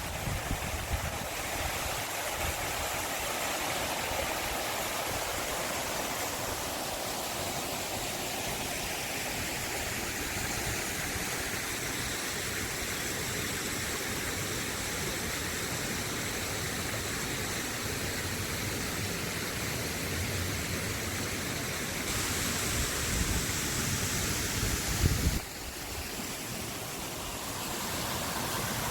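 Forest stream water running with a steady rushing. It turns brighter and louder about 22 seconds in, then drops abruptly a few seconds later.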